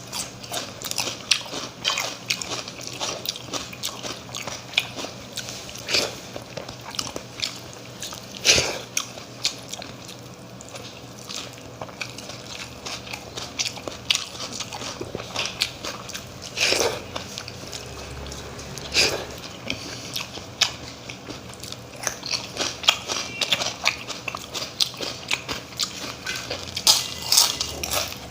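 A person eating close to the microphone: wet chewing and mouth sounds broken by many irregular crisp crunches and bites, a few of them louder than the rest.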